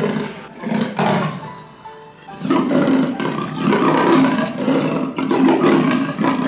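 Big-cat roars and growls: two short rough calls in the first second, then a longer run of them from about two and a half seconds in, over soft background music.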